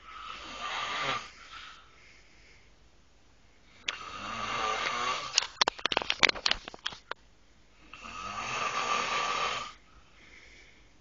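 A man snoring loudly: three long snoring breaths about four seconds apart, the middle one breaking into a quick run of sharp rattling clicks.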